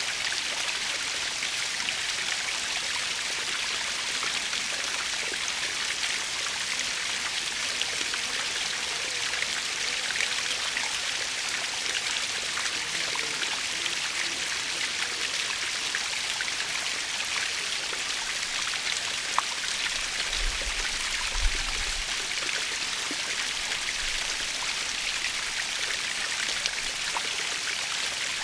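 Natural waterfall: falling water making a steady, even hiss, with scattered small splashes of drops.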